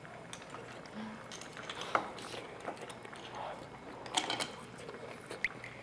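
Faint eating sounds at the table: soft chewing of braised rib meat, with scattered light clicks and taps of metal chopsticks and dishes, a few sharper ones about two and four seconds in.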